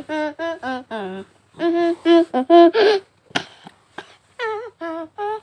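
A person's voice humming or singing a wordless sing-song tune in short, quick notes, in three runs with short pauses between them. Two brief clicks fall in the middle pause.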